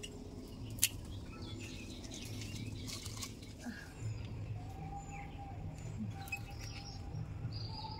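Pruning shears snipping through dragon fruit stems, a sharp click right at the start and another a little under a second in, with birds chirping in the background.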